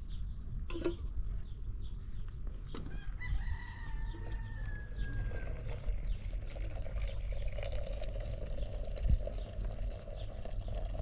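A rooster crowing once, about three seconds in: a single long call of roughly two and a half seconds that slides slightly down in pitch, over a steady low rumble.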